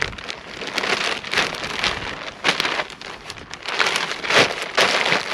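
Thin plastic mailer bag crinkling and rustling in irregular bursts as it is handled and a hammock in its nylon stuff sack is pulled out of it.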